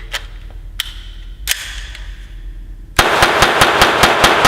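GSG 1911 .22 LR pistol fired rapidly, several shots a second, to empty the magazine, each shot ringing on in the echo of an indoor range. The string starts about three seconds in, after a few separate sharp clicks.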